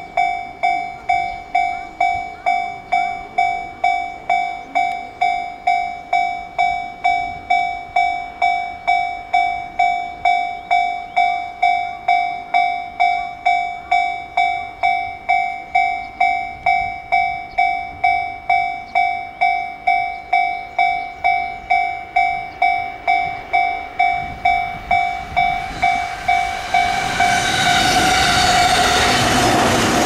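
A railway level-crossing warning bell ringing steadily, a ding about twice a second. In the last few seconds an electric commuter train draws near and passes close by, its rushing rumble rising over the bell.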